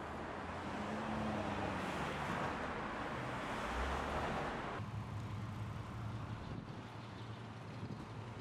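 Street traffic noise: cars passing on a busy city street, a steady hiss and rumble. The louder traffic sound drops off suddenly about halfway through, leaving a quieter low rumble.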